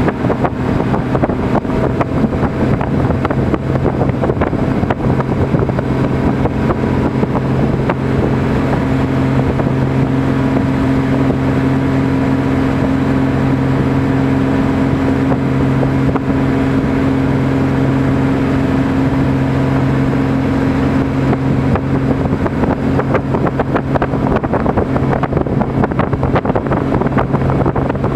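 Motorboat engine running steadily at towing speed, a constant low drone, with wind on the microphone and the rush of water.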